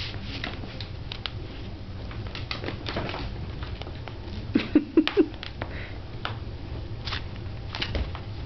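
Small dog playing tug with a fabric tug toy: a scatter of light clicks and rustles from paws and toy, with a quick run of four short growls about halfway through.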